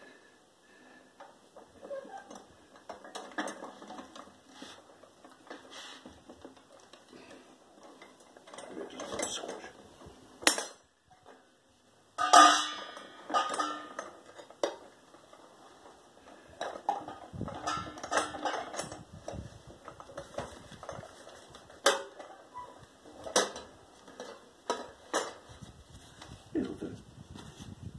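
Metal paper-log briquette press being handled: irregular clinks, knocks and creaks from its sheet-metal box and lever arms, mixed with crinkling as paper and wet cardboard are stuffed into it. The loudest clatters come about ten and twelve seconds in.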